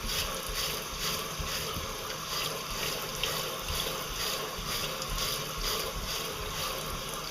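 Grill-cleaning brush scrubbing dirt off the skin of whole taro corms, a rhythmic scratchy rasp of about two strokes a second.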